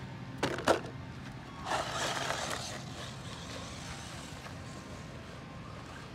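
Two sharp knocks, then the Remo Hobby 1621 Rocket 1/16-scale RC short course truck speeding off with a rush of electric-motor and tyre noise for about a second, before it fades to a faint running hum further away.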